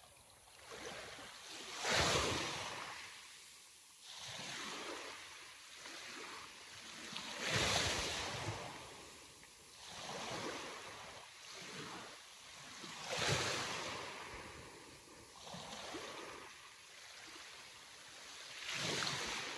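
Sea waves breaking and washing in, with a bigger wave crashing about every five and a half seconds and smaller washes between.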